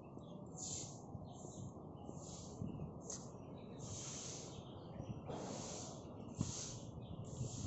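Rhythmic hissing pulses, about one a second, over a steady low background rumble.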